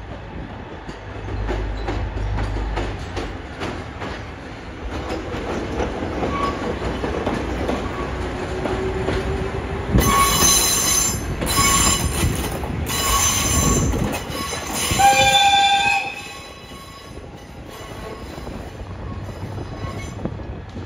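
Diesel shunting locomotive of the Keiyo Rinkai Railway (KD603) passing close while shunting, its engine running with a low rumble. From about halfway in, the wheels screech in several loud bursts, and a short horn blast sounds just after. The sound drops away as the locomotive moves off.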